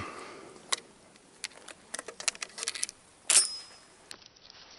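Shotgun being handled: a scattered run of small metal clicks and clinks, then one louder metallic clack with a short ring about three seconds in.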